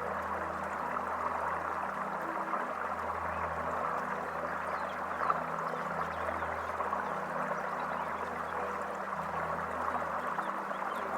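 Steady rushing of flowing water, with faint low held tones underneath that shift pitch every second or two.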